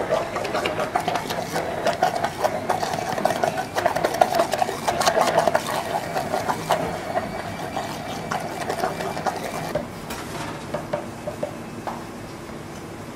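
Hand-held immersion (stick) blender running in a plastic beaker, blending a purée with olive oil. Its loudness rises and falls as it works through the mixture, and the motor stops about ten seconds in.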